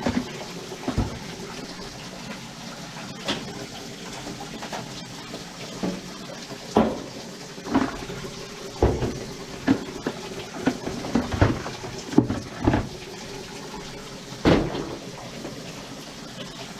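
Irregular knocks and clatters of cordless power tools and drain-cleaning gear being picked up and set down, over a steady rushing background.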